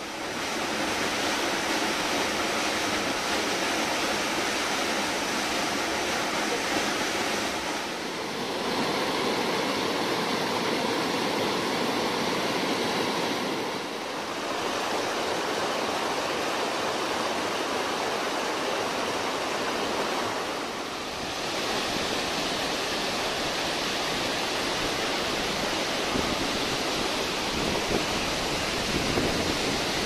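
Water rushing over rocks from small waterfalls and stream rapids: a steady wash of noise whose tone shifts briefly about 8, 14 and 21 seconds in.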